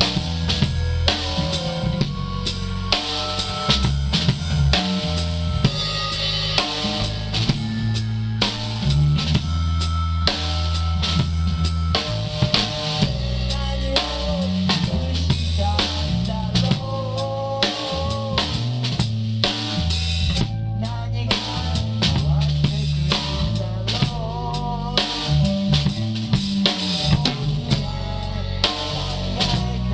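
Rock band music in an instrumental passage, led by a loud drum kit with kick and snare, over bass and a guitar melody line.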